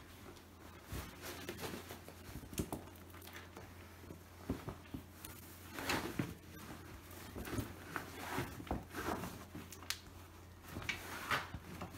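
Gloved hands working a tubeless fat bike tyre's bead loose around the rim: irregular rubbing and rustling with scattered light knocks.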